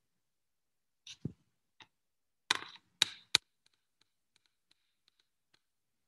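Painting supplies being handled and set down: a few sharp clicks and knocks, one with a dull thud, and the loudest three close together in the middle.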